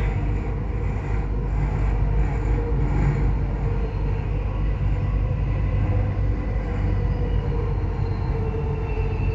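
Dubai Metro train running between stations, heard inside the carriage: a steady low rumble with a faint steady hum over it.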